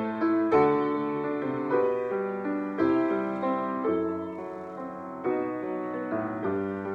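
Grand piano played solo: chords and melody notes struck every half second to a second, each ringing and fading before the next.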